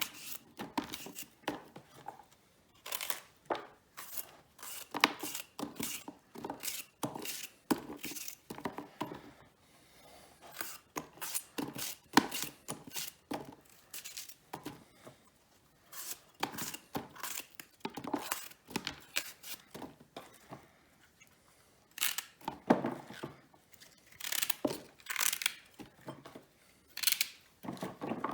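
Fennel bulbs being cleaned, their crisp, fibrous outer layers torn and cut away in many short, irregular strokes.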